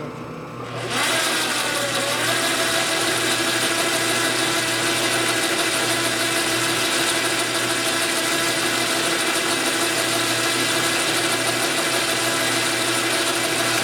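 JET metal lathe switched on about a second in, then running steadily with its chuck spinning: a constant machine hum with a whine from the motor and headstock gears.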